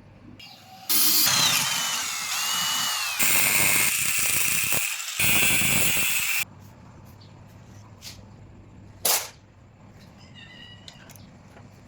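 A power tool working metal in three loud stretches lasting about five and a half seconds, with a high squeal that rises and falls in the first stretch, then stops abruptly.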